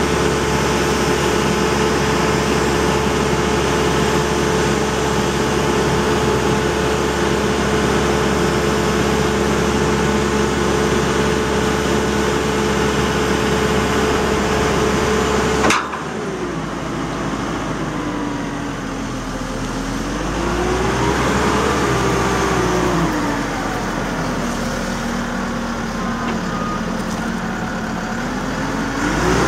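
Caterpillar TL943 telehandler's diesel engine running as the machine drives. Its pitch holds steady for the first half. After an abrupt change about halfway through, the engine speed rises and falls slowly as the machine manoeuvres.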